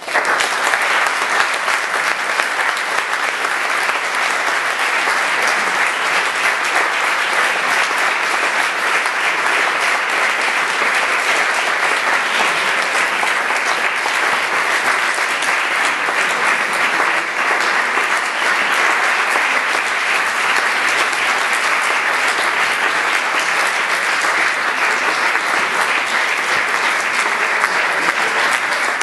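Audience applause, breaking out suddenly and then keeping up as dense, even clapping from a large crowd.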